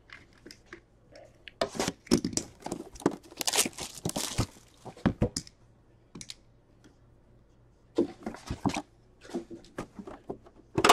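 Plastic wrap being torn and crinkled and a cardboard box being handled, in irregular bursts with short pauses, as a sealed box of hockey cards is opened.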